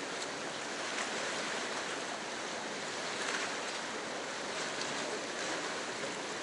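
Steady rush of flowing stream water, with a few faint ticks.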